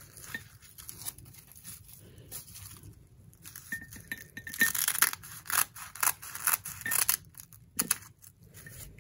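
Kitchen scissors cutting through two stacked sheets of dried nori seaweed: a crisp, papery crackle of many short crunches, thickest from about three and a half to seven seconds in.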